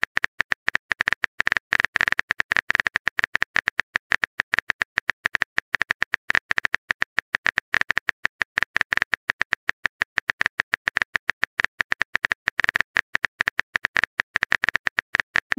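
Keyboard typing sound effect: a rapid, even stream of short clicks, several a second, standing for the next text message being typed.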